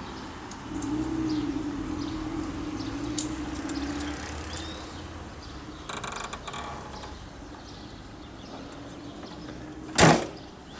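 The rear engine lid of a 1977 Porsche 911 Targa is shut with a single loud thump near the end, over a steady vehicle rumble.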